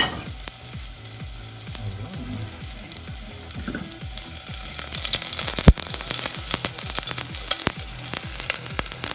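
Onion slices frying in olive oil in a stainless steel saucepan: a steady crackling sizzle that gets busier about five seconds in, with one sharp knock just after.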